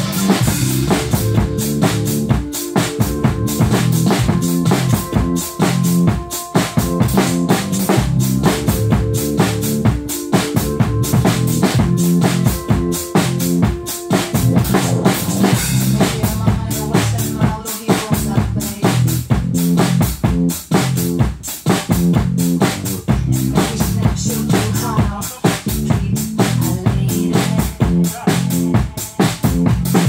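Acoustic drum kit played along with a recorded song: quick, steady kick, snare and cymbal hits over sustained backing notes.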